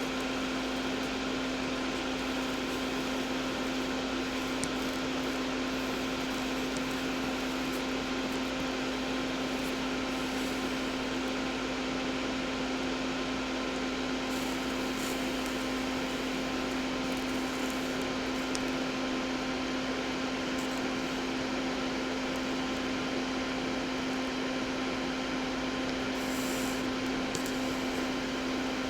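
Soldering fume vent fan running: a steady, even rush of air with a constant hum.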